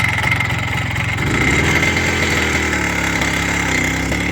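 Minsk motorcycle engine running, its revs rising about a second in and then holding with small rises and dips, during a road test of its freshly repaired gearbox.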